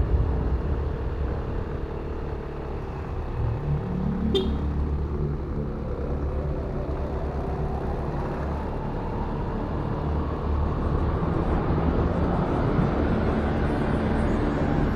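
Motorcycle engine running under way with road and wind noise; its pitch rises about three to four seconds in, and a short sharp click follows.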